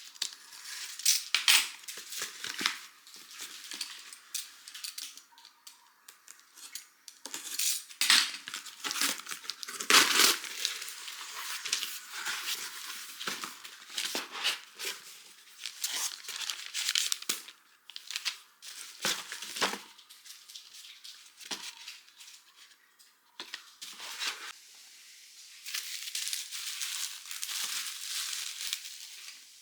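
Stationery packaging being handled and opened: plastic and paper crinkling and rustling in irregular bursts, with a few louder taps and knocks.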